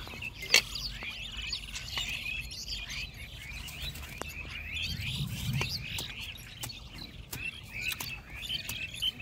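Many small birds chirping and twittering in a dense, continuous chorus. A single sharp knock about half a second in is the loudest sound, with a few fainter ticks later.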